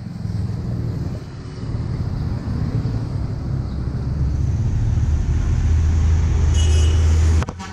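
Low rumble of road traffic going by. It grows louder from about four seconds in, then cuts off suddenly near the end.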